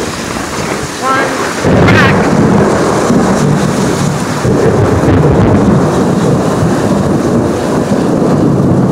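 Thunder from a lightning strike about five miles away. It starts suddenly about one and a half seconds in and rolls on as a loud low rumble for several seconds, over steady heavy rain.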